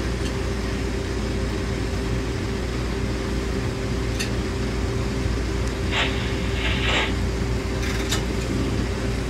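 Interior of an electric high-speed-line rail car running: a steady rumble with a steady motor hum, a few faint ticks, and two short bursts of hiss about six and seven seconds in.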